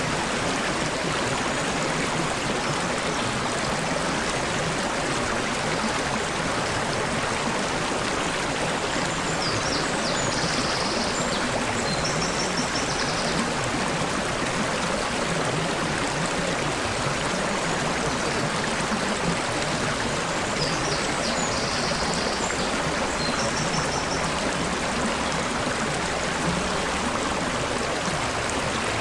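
Small stream babbling steadily over rocks. A bird sings two short high-pitched phrases, about ten seconds in and again about twenty seconds in.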